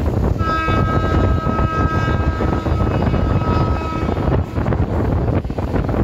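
A train horn sounds one long steady blast of about three and a half seconds, starting about half a second in. Underneath is the continuous rumble and clatter of an Indian Railways passenger coach running at speed, with wind buffeting the microphone at the open door.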